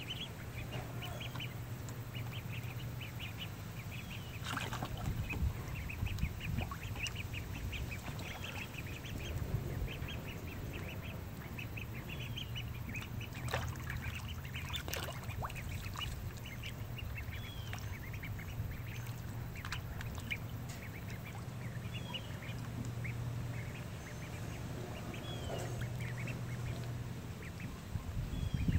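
Ducks calling: many short, high calls repeated over and over, with a steady low hum underneath and a few sharp knocks.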